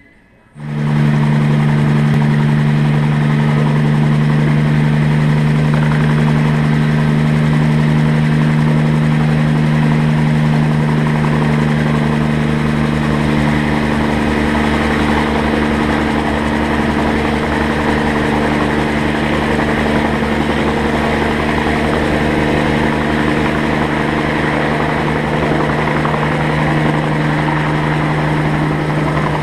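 Bell 47 G2 helicopter running, its Lycoming six-cylinder piston engine and rotor making a steady drone with a fast low beat from the blades, starting abruptly about a second in. A little under halfway a higher note joins as the helicopter lifts off into a hover.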